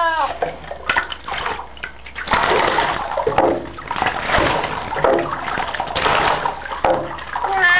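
Bathwater splashing and sloshing around a lilac point Siamese cat being washed, the splashing coming and going. The cat starts to meow right at the end.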